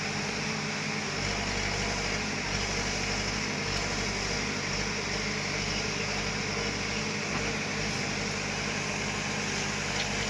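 Diesel engine of an earthmoving machine (bulldozer or tractor) running steadily, its low rumble growing stronger about a second in.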